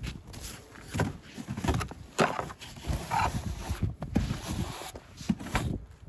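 Snow brush sweeping heavy, wet snow off a pickup truck's tailgate: irregular brushing and crunching strokes, some sharper than others.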